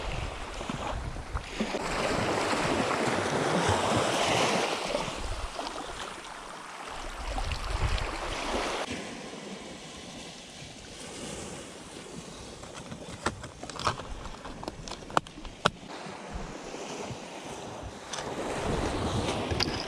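Sea waves washing in and drawing back, swelling loud over the first few seconds, again around eight seconds and near the end, with wind on the microphone. A few sharp clicks in the quieter middle stretch.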